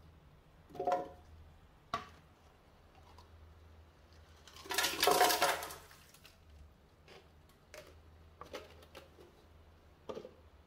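Water poured from a glass into a plastic blender jar over apple pieces, splashing for about a second and a half midway through. A few short knocks come before and after it.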